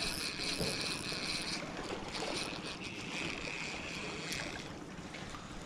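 Sea surf and wind on the microphone, an even rushing noise, with a steady high-pitched whine that stops about one and a half seconds in and comes back more faintly for a second or so later.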